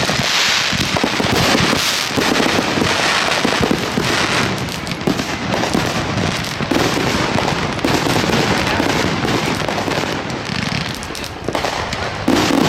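Consumer fireworks going off in a dense, continuous crackle of many quick pops.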